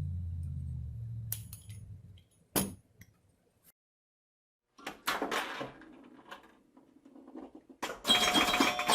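A steady low hum fades away, then a single sharp click and a few seconds of dead silence. Clattering noise follows, and near the end a loud, bright chime with several ringing tones starts.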